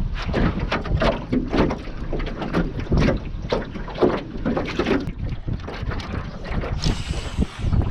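Gusty wind buffeting the microphone, with water chop knocking against a small aluminium john boat in short uneven knocks, and a brief hiss near the end.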